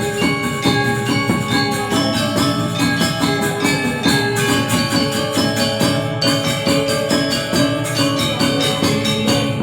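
Balinese gamelan playing: bronze metallophones struck in fast, dense runs of ringing notes.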